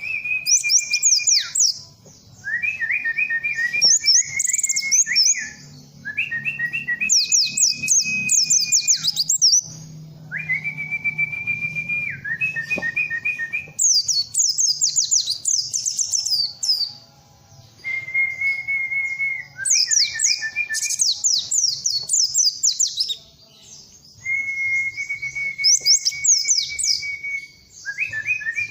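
Pleci (white-eye) song: phrases of rapid, high twittering alternate with lower, steady whistled notes, repeating every few seconds.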